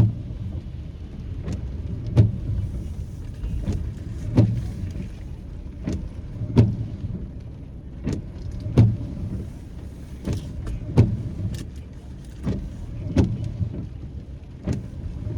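Inside a car: a steady low rumble of engine and road, with a regular click about every three-quarters of a second, every third click heavier with a low thump.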